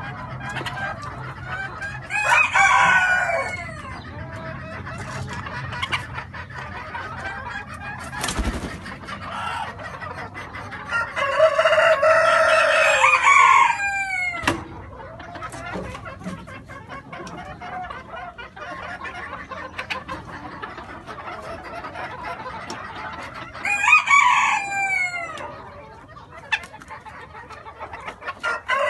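Splash Cochin bantam roosters crowing three times, about two seconds in, around eleven to fourteen seconds in and near twenty-four seconds, over steady clucking from the flock. A single knock about eight seconds in.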